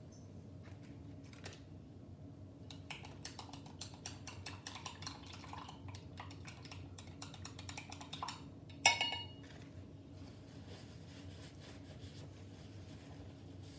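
A spoon stirring sugar and non-dairy creamer into a cup of instant coffee: a run of quick clicks and scrapes for several seconds, then one loud ringing clink about nine seconds in, as the spoon strikes the cup.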